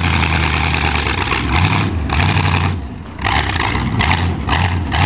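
Car engine revving in repeated surges over a steady low running note.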